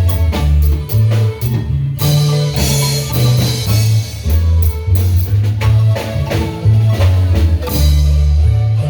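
Marimba band playing: marimba with a deep, stepping bass line and drums.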